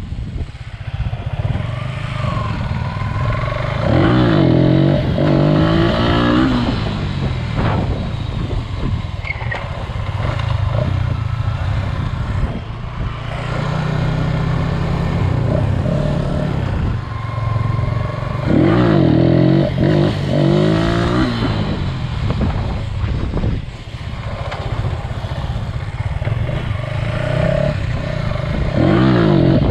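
Yamaha Exciter 150 underbone motorcycle's single-cylinder engine running under way, with three hard bursts of throttle where the revs climb steeply: about four seconds in, around the middle, and near the end.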